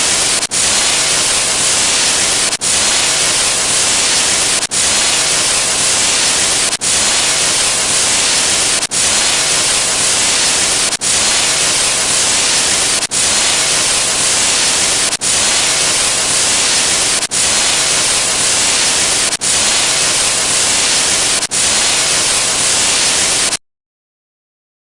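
Loud static, a white-noise hiss sound effect, broken by a brief dropout about every two seconds. It cuts off abruptly near the end.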